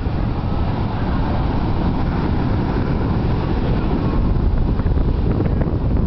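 Surf breaking and washing up a sandy beach, heavily overlaid by wind buffeting the microphone.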